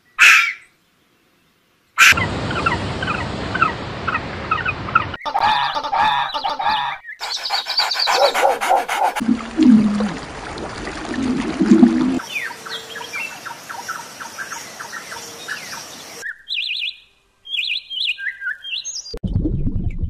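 Separate animal-sound clips cut one after another: a short sharp call at the start, then mostly birds chirping and singing in bursts, with low pigeon cooing over splashing water around the middle.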